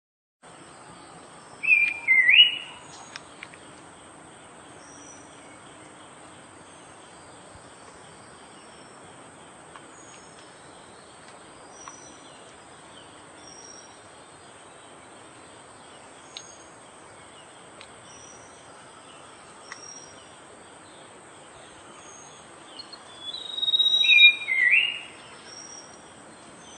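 Horsfield's babbler (pelanduk semak) singing two loud whistled phrases, one about two seconds in and one near the end, each a few quick notes that jump up in pitch. Faint high chirps and a steady high insect hiss carry on in the background.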